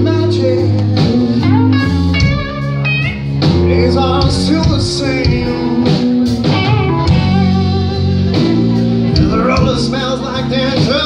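Live blues-rock band playing: electric guitars, electric bass and drum kit, with a singer's voice over them.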